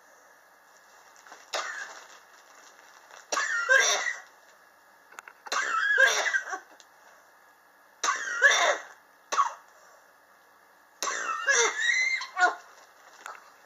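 A person coughing in four harsh fits, each a run of several coughs, about two to three seconds apart. This is a chronic cough that, per the cougher, has persisted since 2016.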